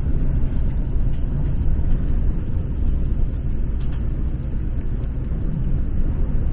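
Strong storm wind buffeting a parked motorhome, heard from inside as a steady low rumble that swells and eases with the gusts. There is a faint knock about four seconds in.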